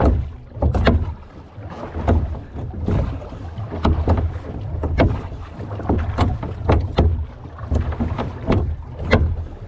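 Small wooden-oared rowboat being rowed: the oars knock and click in their metal oarlocks with each stroke, over water sloshing against the hull.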